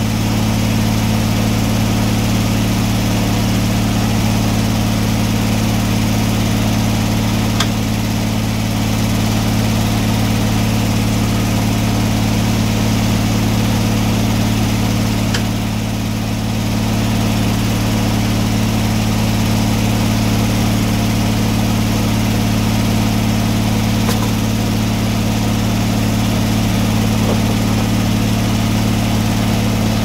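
Engine running steadily at a constant speed, with a few faint clicks over it.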